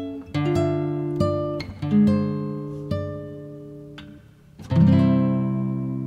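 Background music on acoustic guitar: plucked notes and chords that ring out and fade, with a fuller chord struck about three-quarters of the way through.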